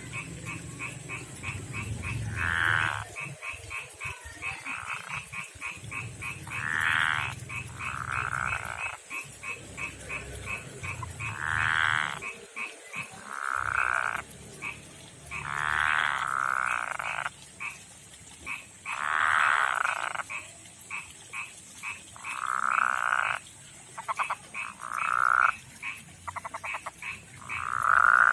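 Male frogs giving their mating calls to attract females: a fast run of short clicking pulses throughout, broken every two to four seconds by louder, drawn-out croaks.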